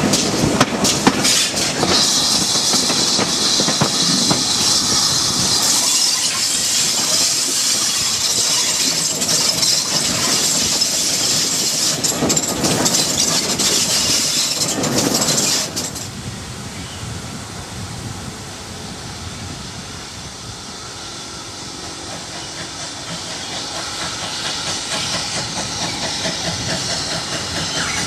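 Riding a steam-hauled train: wheels clicking over rail joints under a steady steam hiss and running noise. About 16 seconds in it drops abruptly to a quieter steam hiss and rumble that grows louder as a steam locomotive approaches.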